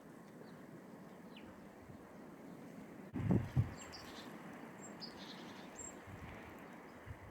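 Blizzard wind blowing steadily, with a few faint, short bird chirps scattered through it and a brief low thump about three seconds in.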